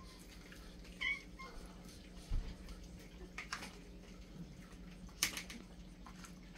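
A cat gives one short meow about a second in, among a group of cats crowding in to be fed, followed by a dull thump and a few sharp clicks.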